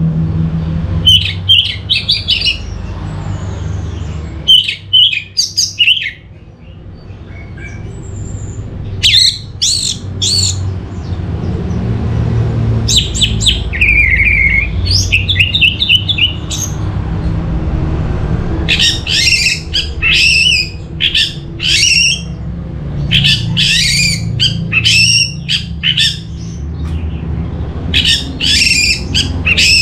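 Orange-headed thrush singing in short bursts of rapid, high, varied notes every few seconds, with a slurred note about halfway through, over a steady low hum.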